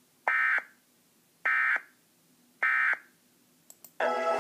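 Emergency Alert System end-of-message data tones: three short, harsh digital bursts about a second apart, signalling the end of the tornado warning broadcast. Music starts near the end.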